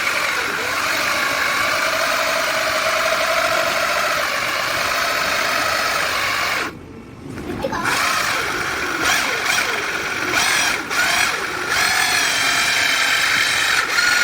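Electric drill spinning an adjustable circle cutter bit, running steadily. It stops for about a second around the middle, then runs again with a few brief dips.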